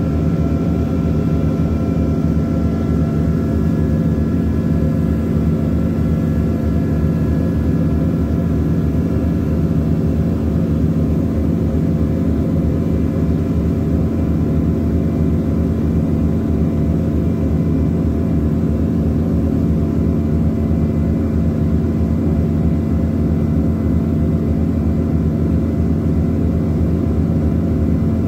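Ship's diesel engine running steadily at constant speed, a loud, even, deep drone with a steady hum over it.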